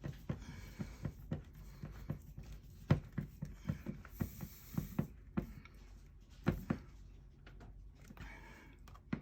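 Irregular small clicks and taps of a screwdriver and the plastic RV wall outlet being handled as the outlet is straightened and its mounting screws snugged, the loudest about three seconds in and again about six and a half seconds in.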